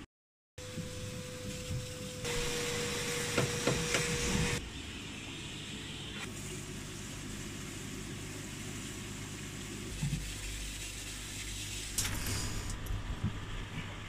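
Water hissing from a hose into a pond filter chamber for about two seconds, with a few knocks, over a steady hum. It then settles to a quieter steady rush of water with occasional clunks as the filter is worked on.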